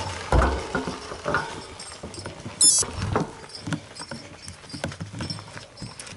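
Trek 920 gravel bike rolling over a rocky dirt trail: irregular knocks, clatters and tyre crunch from the bike jolting over stones, with one heavy jolt about half a second in.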